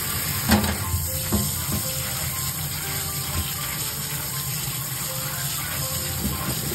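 Water running steadily, as from a kitchen tap, with a few light knocks about half a second and a second and a half in.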